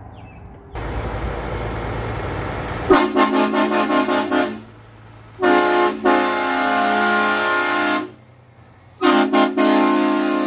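HornBlasters Shocker XL train horn sounding its chord in three blasts: first a quick run of short toots, then one long blast of about two and a half seconds, then a third blast that starts with a couple of stutters and is held. A steady rushing noise comes before the first blast.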